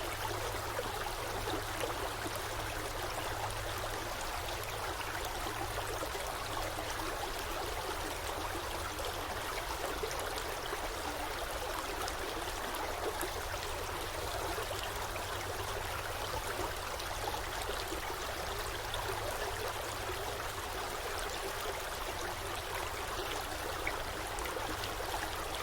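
Forest stream flowing steadily, a continuous rush of running water over rocks with fine gurgling and trickling detail.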